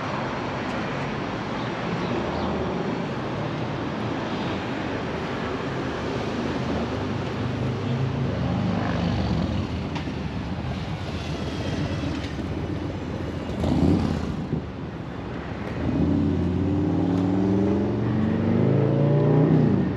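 Road traffic going past on the street, a steady hiss with engines passing. Near the end a vehicle accelerates past, its engine note rising steadily in pitch for several seconds.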